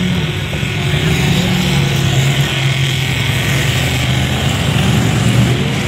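Engines of the racing trucks in a truck-class enduro, running at speed as a steady, loud drone whose pitch wavers slightly.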